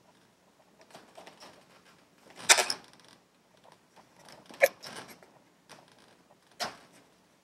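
Red Sharpie marker tip rubbing and squeaking on an inflated latex balloon, along with hands rubbing on the balloons. It comes as a string of short strokes, with the three loudest about two seconds apart.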